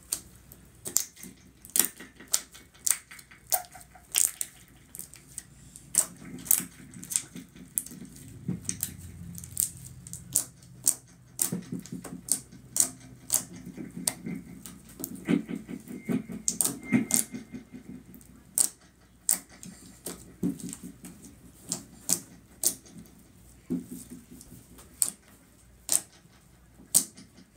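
Thick slime being squished, pressed and poked by hand, giving irregular sharp pops and clicks, roughly one or two a second, over a soft squelching.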